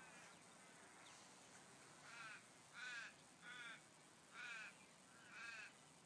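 A bird calling five times in a row from about two seconds in: short, arching calls a little under a second apart.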